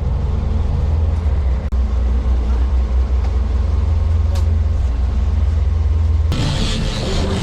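Boat engine running with a steady, loud low hum. About six seconds in it gives way abruptly to a rushing hiss of wind and water.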